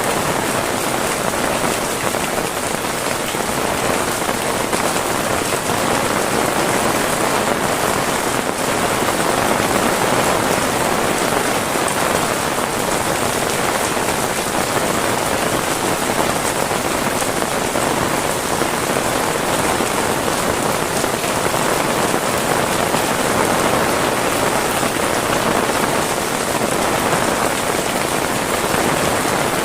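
Heavy rain falling steadily, an even unbroken hiss of drops on surfaces.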